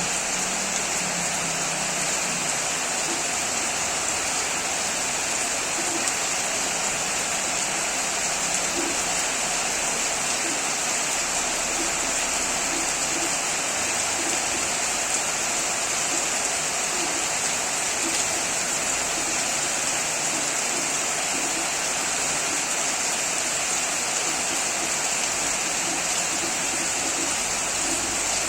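Steady rain falling, a dense, even hiss that does not let up.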